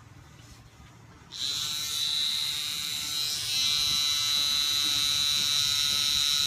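Permanent-makeup tattoo pen switched on about a second in, then running with a steady high whine.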